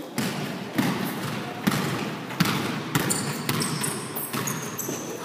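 A basketball bouncing and hitting the gym floor, a few separate thuds about a second apart, with short high squeaks of sneakers on the court in between.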